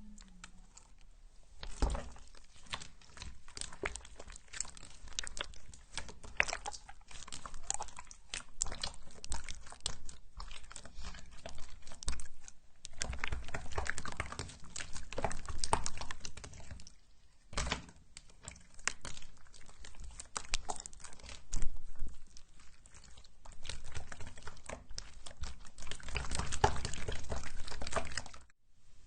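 Slime being squished and stretched by hand, making dense wet clicking and popping in bursts with short pauses.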